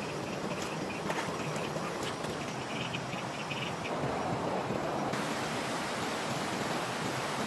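Steady rush of flowing stream water, with a few light splashes in the first couple of seconds.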